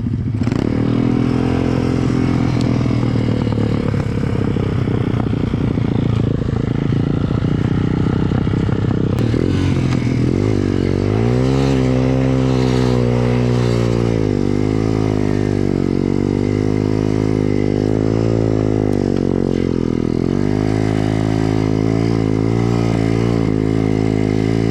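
A 125 cc four-stroke single-cylinder pit bike engine running under load in deep snow. For the first ten seconds or so it runs fairly steadily; after that it revs up and drops back again and again as the throttle is worked.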